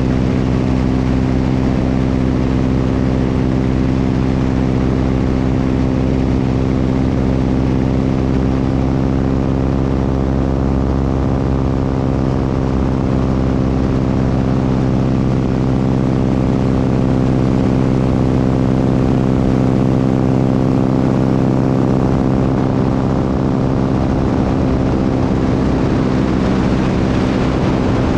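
Propeller airplane's engine and propeller running steadily in flight, a constant droning hum heard close up with rushing air noise.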